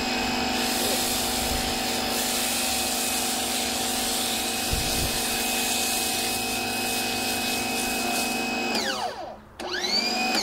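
Electric pressure washer driving a foam cannon, its motor running steadily with a whine and a hiss of spray. Near the end the motor winds down with falling pitch as the trigger is let go, then starts again with a rising whine.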